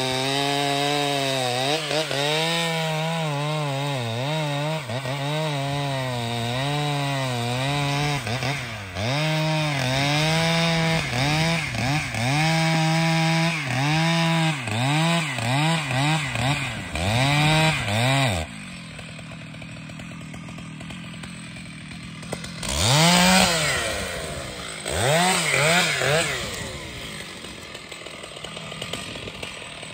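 Large professional two-stroke chainsaw cutting through dense trembesi wood, its engine pitch dipping and recovering over and over as the chain bites. About 18 seconds in it drops back to idle, then it is revved up in a few short bursts.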